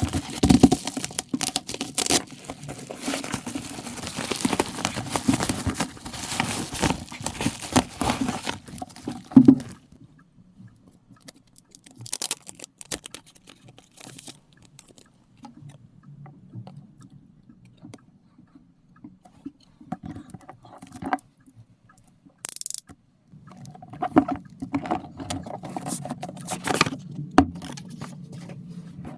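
Hands unwrapping packaging: rustling, tearing and crinkling of wrapping. The handling is dense for about the first ten seconds, turns to sparse taps and rustles, and grows busy again for the last few seconds.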